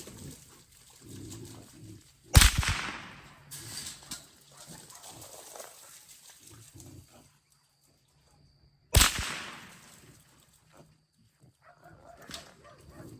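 Two .22 Long Rifle shots about six and a half seconds apart, each a sharp crack, with wild hogs grunting quietly in between.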